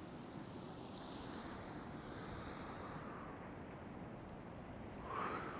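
Faint, steady background noise with a high hiss that swells and fades in the middle, and a short tone that rises and falls about five seconds in.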